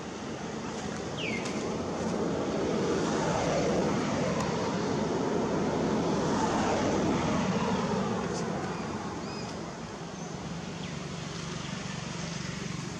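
A motor vehicle passing by: its engine noise swells over the first couple of seconds, is loudest around the middle with a slowly falling pitch, then fades away.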